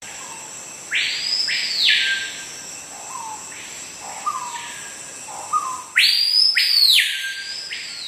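Screaming piha calling: its loud whistled 'pee-pee-yo', two quick notes sweeping steeply up into a high note that then drops away. Given loudly about a second in and again about six seconds in, with a fainter call in between and short low notes leading into each.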